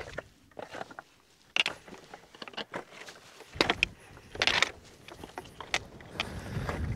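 A walker's footsteps on a stony hill path, irregular steps about a second apart, over a faint low rumble of wind on the microphone.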